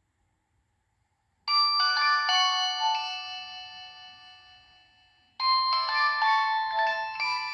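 Nokia 6015i ringtone playing from the phone's speaker. After a short silence it starts about a second and a half in with several held notes that slowly fade. A fresh phrase of notes comes in sharply about two-thirds of the way through.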